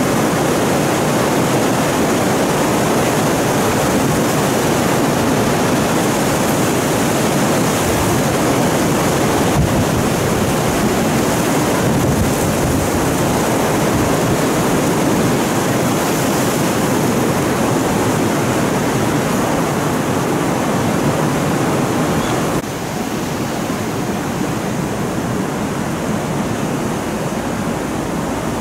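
Strong wind and rough sea surf: a steady, loud rushing noise with no distinct breaking waves, which steps down to a lower level near the end.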